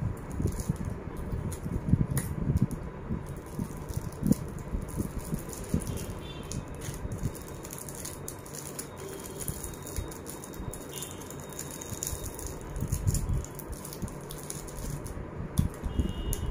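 Irregular rustling, crinkling and small clicks of wrapped candies and their plastic bag being handled, with candies set down on the hamper top.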